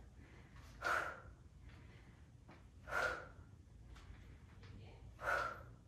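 A woman's short, forceful exhalations, three of them about two seconds apart, breathing out hard on each rep of a Bulgarian split squat.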